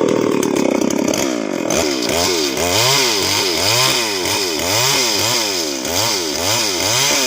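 Two-stroke chainsaw running. After about two seconds its engine pitch starts rising and falling in a steady rhythm, about twice a second.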